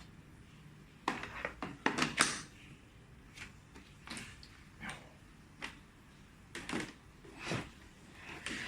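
Plastic parts of a robot vacuum being handled: a quick cluster of clicks and knocks about a second in, then single clicks and short scrapes about once a second.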